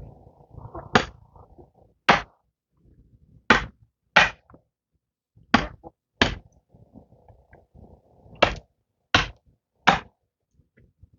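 Repeated hard blows of a hand tool, nine sharp strikes in all, mostly in pairs less than a second apart with short pauses between, and faint scraping or rustling in between.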